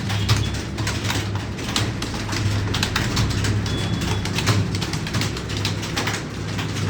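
Computer keyboard being typed on quickly during a typing test, a dense, irregular run of key clicks over a steady low hum.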